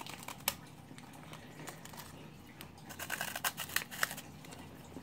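Faint crinkling and clicking of a plastic snack wrapper being handled, with a short flurry of crackles about three seconds in.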